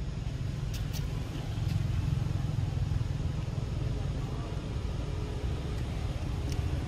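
Steady low background rumble, with a couple of faint clicks about a second in and another near the end.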